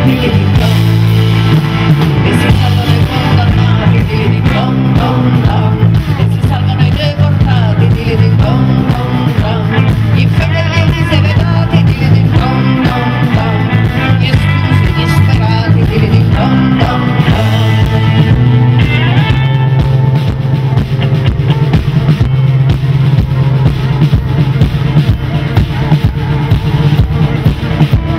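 Live band playing a song on electric guitars, bass and drum kit, with a woman singing over it.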